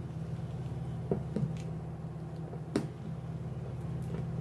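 A few light clicks and taps from handling a plastic action figure: two about a second in, and a sharper one near the three-second mark, over a steady low hum.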